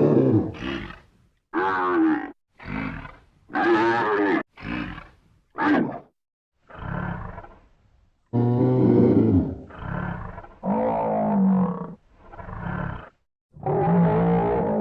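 A string of about a dozen short buffalo bellows and grunts, each lasting a second or so, separated by abrupt dead-silent gaps.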